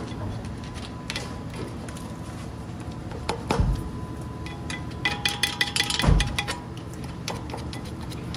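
Metal tools and brake parts clinking and knocking as they are handled during front brake pad work: a few scattered clicks, a dull knock about three and a half seconds in, then a quick run of ringing metallic clinks ending in another dull knock around six seconds in, over a steady low hum.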